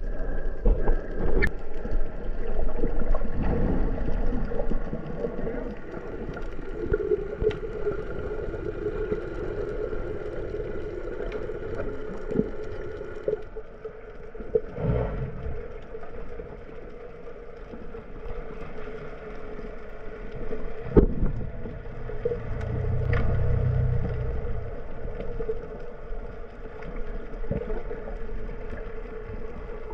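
Underwater sound through an action camera: muffled water noise with the steady hum of a boat motor carried through the water, and a few short knocks.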